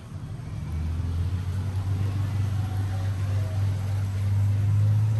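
A low, steady motor hum that grows louder about a second in and is strongest near the end.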